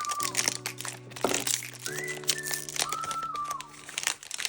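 Background music of held, gliding notes, with a plastic wrapper crinkling as a Mini Brands package is pulled open.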